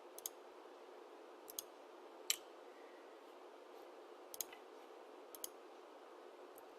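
Computer mouse clicking while folders are navigated: a few quick double-clicks and single clicks, faint, over a steady low hiss.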